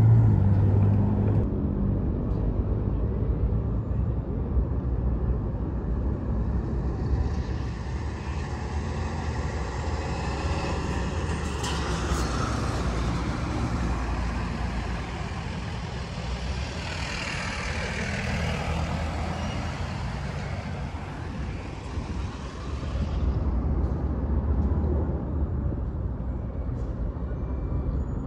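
City buses and other road traffic passing, a steady engine rumble with a louder vehicle pass through the middle.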